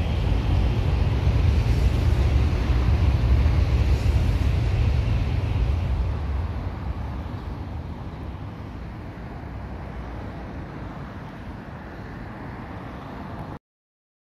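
A low rushing rumble, loud for about the first six seconds and then slowly fading, cut off abruptly near the end.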